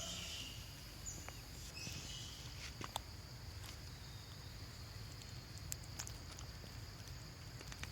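Steady outdoor background with a constant high hum, a few short high squeaks in the first two seconds and scattered light taps and clicks.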